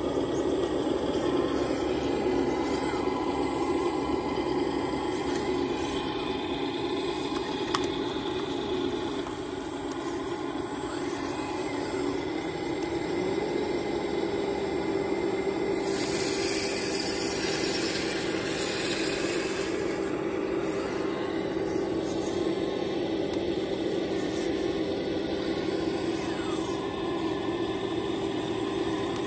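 Scale radio-controlled hydraulic excavator (a Kobelco SK350 model) running, its hydraulic pump motor whirring steadily as the arm and bucket work. The pitch rises slightly about 13 seconds in, and a high hiss joins for about four seconds in the middle.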